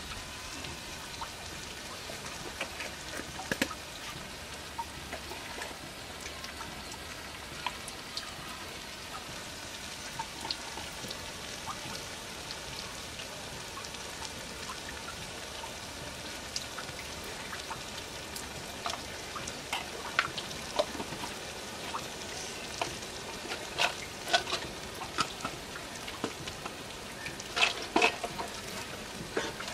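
Onions and spices frying in oil in a wok, a steady crackling sizzle. Sharp clicks and taps from handling spoons and small spice containers are scattered through it, coming more often and louder in the second half.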